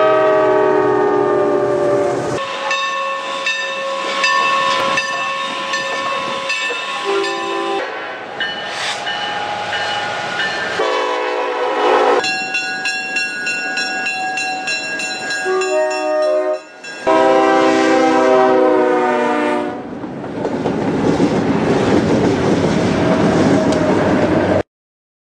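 Diesel locomotive air horns blowing in several short takes, each cut off abruptly into the next every few seconds. Near the end comes the rumble and wheel noise of a passing freight train, which stops suddenly.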